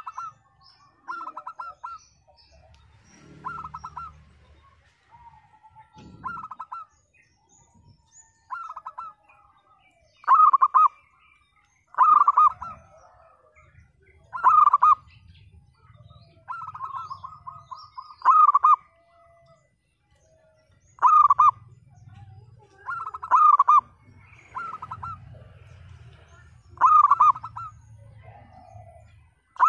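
Zebra dove (perkutut) singing: a short, rough cooing phrase about every two seconds, a few of them drawn out into a longer run. This is the cracked, 'pecah' voice that keepers use to lure quiet birds into calling.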